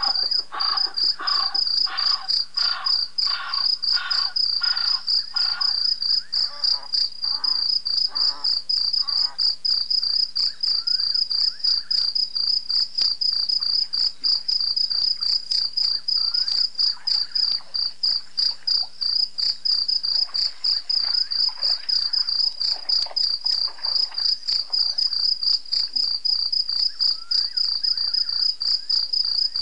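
Crickets chirping in a fast, steady, high pulse. Over the first six seconds a run of lower-pitched calls, about two a second, fades out, and fainter scattered ones come back later.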